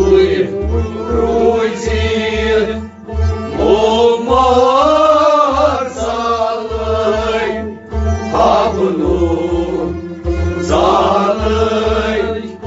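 Kashmiri Sufi devotional song: a man's voice singing long, bending, ornamented phrases over a harmonium and bowed and plucked string instruments, with a steady low beat.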